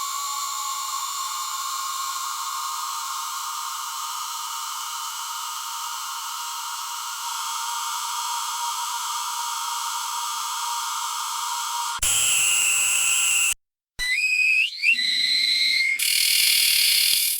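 Magnetic stirrer running with a steady high-pitched whirr of several held tones over a hiss. About twelve seconds in, it cuts abruptly to short, louder segments separated by brief silences, one of them with a rising glide in pitch.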